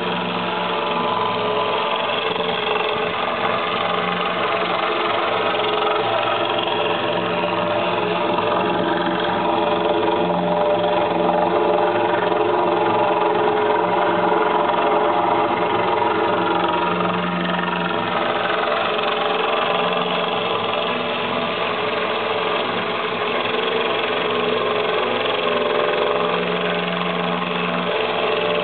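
DeWalt cordless drill driver running steadily, its diamond core bit grinding a hole through aquarium glass kept wet by a garden hose. The run is a little louder in the middle.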